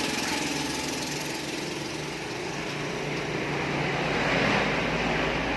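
A small engine running steadily, getting a little louder about four seconds in.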